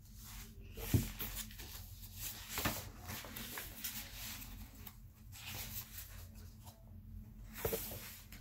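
Soft rustling and handling noise in a small room, with a few knocks, the loudest a sharp knock about a second in.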